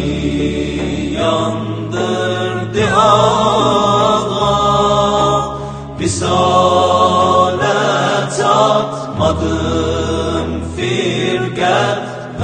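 Group of male voices singing a slow, chant-like song over low, held bass notes that step from one to the next every second or two.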